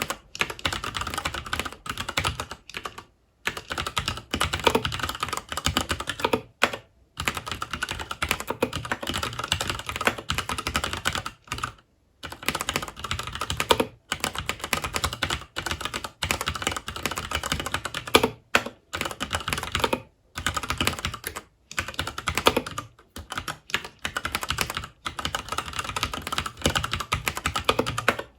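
Fast, continuous typing on a FILCO Majestouch 2 tenkeyless mechanical keyboard with Cherry MX Brown switches, keystrokes clacking in quick runs broken by brief pauses.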